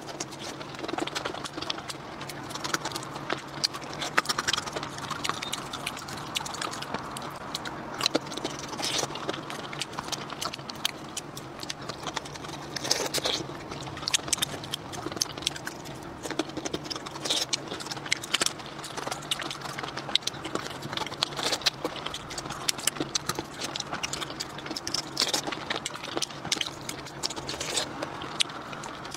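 Close-miked mouth sounds of raw shrimp being eaten: wet sucking, chewing and lip smacking, with many small sharp clicks. A faint steady low hum lies underneath.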